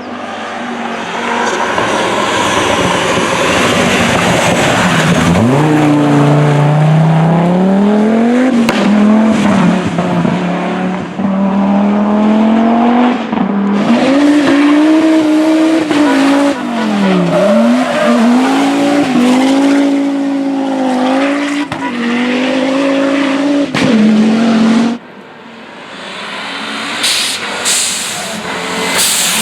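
Audi Quattro rally car's turbocharged inline five-cylinder engine driven hard, its note rising and falling repeatedly as it changes gear and lifts off, with a deep drop in revs about five seconds in. Near the end it falls to a quieter passage broken by a few sharp cracks.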